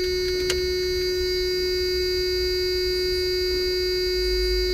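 A steady electrical hum: one strong held tone with fainter steady tones above it. There is a small click about half a second in.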